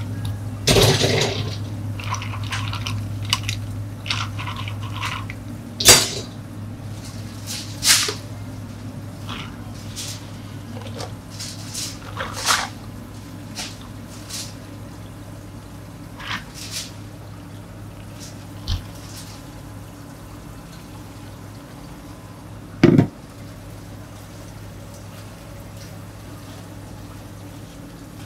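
Ice cubes scooped with a metal ice scoop and clattering into plastic cups, then several separate sharp knocks of cups and metal utensils set down on the counter, and water poured from a plastic pitcher over ice. A steady low hum runs underneath.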